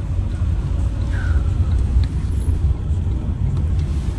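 Steady low rumble of road and engine noise heard inside the cabin of a moving taxi.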